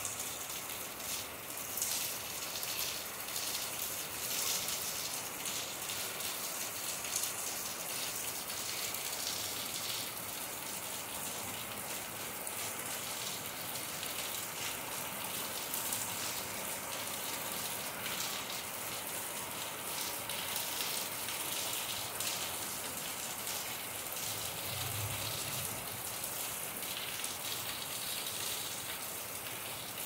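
Steady rain falling: an even hiss of rain with many small individual drop hits.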